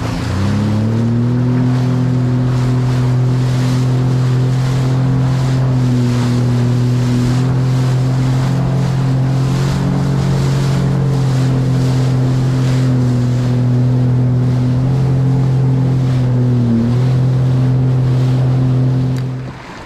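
Jet ski engine running at a steady speed under way, with a brief dip in pitch about 17 seconds in. Its sound drops off sharply just before the end. Water splash and wind noise run under it.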